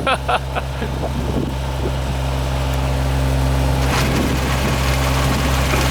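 Engine running steadily with a low, even hum that slowly grows louder.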